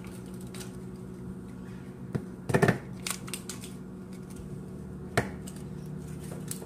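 Plastic slime tub being handled with its lid off: a few sharp clicks and crinkles, the loudest a short cluster about two and a half seconds in, over a steady low hum.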